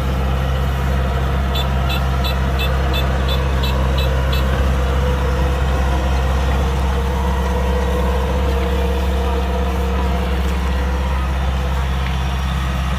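Kubota DC-105X combine harvester's diesel engine and threshing machinery running steadily under load. A run of about nine quick electronic beeps, roughly three a second, sounds between about one and a half and four seconds in.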